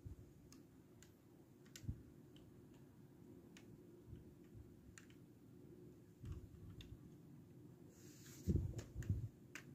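Faint scattered plastic clicks and taps from a LEGO model's bricks and landing-gear parts being handled by fingers, with a sharper knock about two seconds in and a few louder soft bumps near the end.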